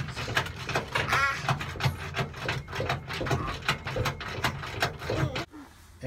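Ratchet wrench clicking in quick, uneven runs as the seat-belt anchor bolt on the roll bar is worked, with a short bit of a voice about a second in.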